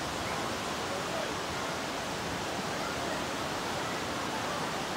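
Steady rush of a fast-flowing mountain stream.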